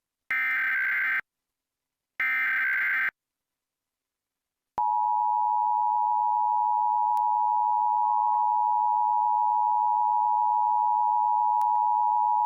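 Emergency Alert System alert: two short, harsh digital data bursts of the SAME header, about a second each, then after a pause the EAS attention signal. The attention signal is a steady two-tone (853 and 960 Hz) tone that starts about five seconds in and holds, marking the start of the nationwide EAS test.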